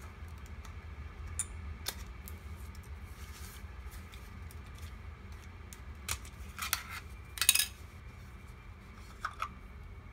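Scattered plastic clicks and short scrapes from a small plastic dashboard camera being handled and its battery cover slid off, with the loudest snap of the cover about seven and a half seconds in and two light clicks near the end.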